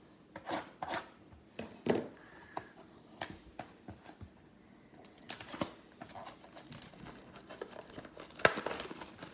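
Plastic and foil wrapping crinkling and tearing as a trading-card box and its packs are opened, with scattered crackles and small clicks, the loudest tear near the end.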